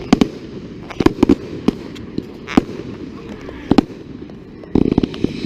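Fireworks exploding overhead: sharp bangs and cracks at irregular intervals, with a quick cluster of bangs near the end.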